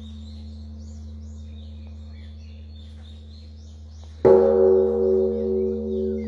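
A large bell, struck once about four seconds in, rings out with several tones and a pulsing hum that slowly dies away. Birds chirp throughout, and a steady low hum sounds before the stroke.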